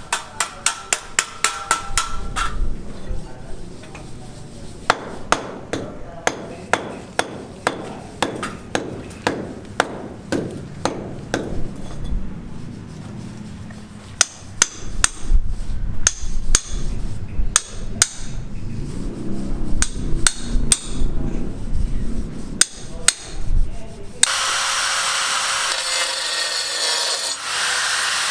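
Hammer blows struck over and over, at times in a steady run of about two a second and at times irregular. About three-quarters of the way through, a power saw starts with a steady, loud cutting noise.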